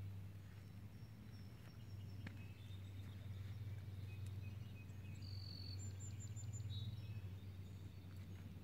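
Birds calling faintly with short, high, thin whistled notes over a steady low hum.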